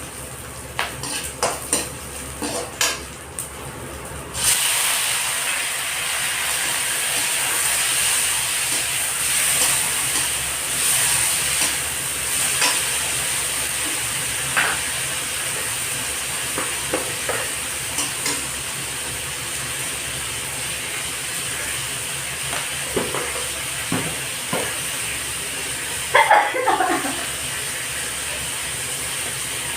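Fried rice cooking in a pan: a few utensil clicks against the pan, then about four and a half seconds in a sudden steady sizzle starts as food hits the hot oil, with spatula taps and scrapes through it as it is stirred.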